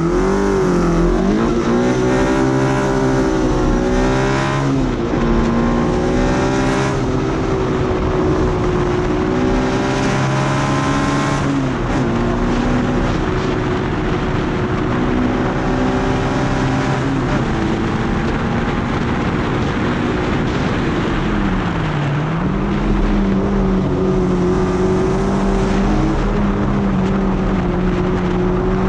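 Onboard sound of a 1971 Mallock Mk11B's four-cylinder engine launching off the line and revving hard up through the gears. The revs climb and drop back at upshifts about four and twelve seconds in, then stay high with a brief dip a little past twenty seconds.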